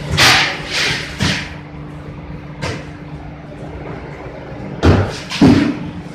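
Factory machinery running with a steady low hum, broken by about six loud, irregular knocks and thuds, the strongest near the start and about five seconds in.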